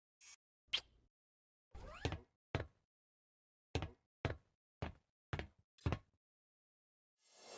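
Animation sound effects: a series of about eight sharp knocks, mostly half a second to a second apart. Near the end a rushing whoosh begins to swell.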